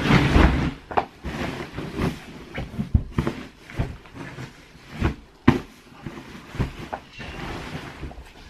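Bedding being handled: a duvet whooshes and flaps as it is shaken out over a bed, then rustles as it is spread and smoothed, with a few short sharp knocks in between.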